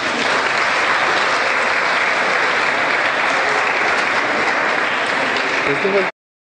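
An audience of schoolchildren and staff applauding steadily. The applause cuts off abruptly about six seconds in.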